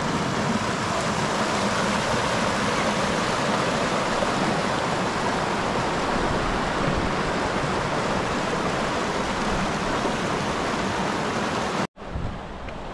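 A rocky mountain stream rushing over stones: a steady, even hiss of running water. It cuts off abruptly near the end, and a quieter outdoor hiss follows.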